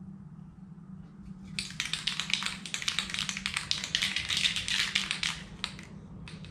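Aerosol spray-paint can being shaken, its mixing ball rattling rapidly for about four seconds, then two short rattles near the end. A low steady hum runs underneath.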